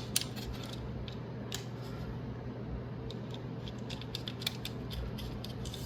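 Faint, scattered small clicks and ticks of small parts being handled as a plastic cable holder is fastened with a flange screw on a graphics card's fan assembly, with a sharper click at the very start, over a steady low hum.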